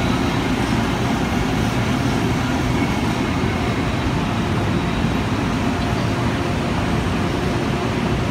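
MBTA Green Line light-rail train running past close by on an underground platform: a steady, loud rumble of wheels and motors on the rails.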